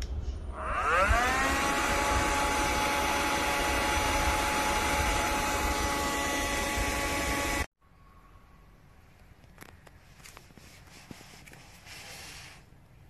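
ELUXGO EC19C cordless vacuum cleaner switched on: its motor spins up with a rising whine about a second in, then runs steadily with a whine over airflow hiss. It cuts off abruptly past the middle, leaving faint rustling and a few clicks.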